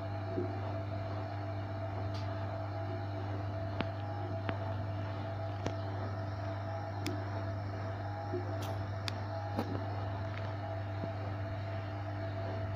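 Hoover Electronic Automatic de luxe washing machine running on its spin-dry cycle: a steady motor hum with a few faint clicks scattered through.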